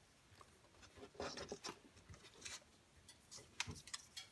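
Faint, intermittent scratchy rustles of PTFE thread seal tape being pulled off its roll and wrapped around a pump's threaded port.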